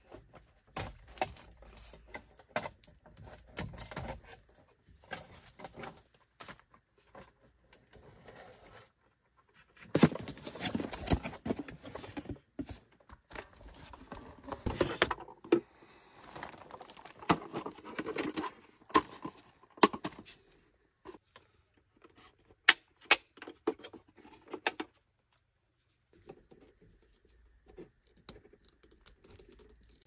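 Hands working with tools and parts: scattered clicks, knocks and rattles with rustling. The handling is busiest through the middle, with a few sharp clicks after it, and grows quieter near the end.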